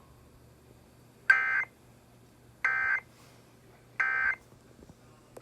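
Emergency Alert System end-of-message code: three short bursts of SAME digital data tones, evenly spaced about a second and a half apart. This is the signal that closes the alert.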